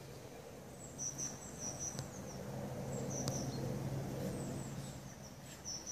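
Small songbirds chirping in short, high, repeated phrases in winter woodland, over a faint low hum and a soft rustle that swells in the middle.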